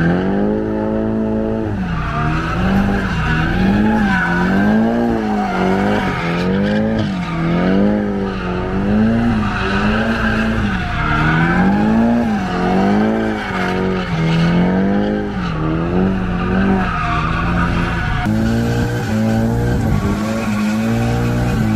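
Nissan 180SX's turbocharged SR20DET engine revving up and down about once a second, with tyres squealing as the car drifts in tight circles.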